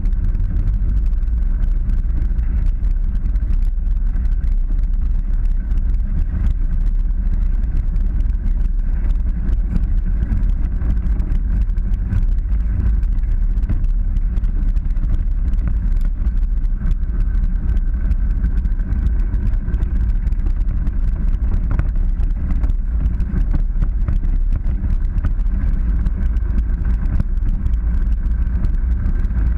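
Polaris 900 side-by-side running steadily while driving a dirt trail, a continuous low rumble with no changes in pace.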